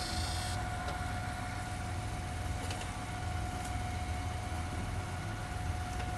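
Engine of a heavy machine running steadily at idle, a low rumble under a steady whine, with a short hiss right at the start.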